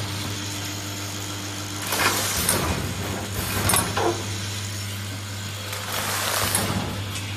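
Vertical form-fill-seal packing machine running, a steady hum with a swelling noisy rush about two seconds in and again near six seconds, and a few sharp clicks near four seconds as its mechanisms cycle.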